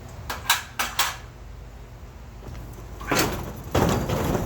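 A quick run of about four sharp knocks, then two scraping rubs about three seconds in: a metal jamb latch being set against a sliding barn door and shifted to find its mounting spot.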